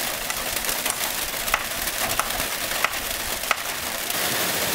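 Light rain falling steadily, with scattered crunches and sharp clicks of footsteps on dry leaves.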